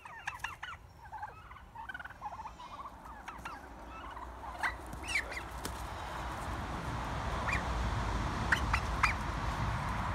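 Domestic turkeys gobbling in quick warbling calls over the first few seconds, then a rushing noise that grows louder, with a few sharp clicks over it.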